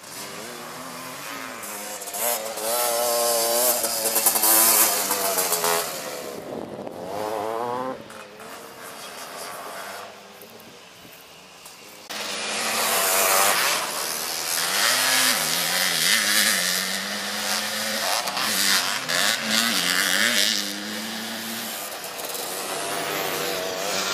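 Racing three-wheeler engines revving hard as the trikes pass on the dirt track, the pitch climbing and falling with each throttle change. The sound fades about ten seconds in, then comes back loud suddenly about halfway through.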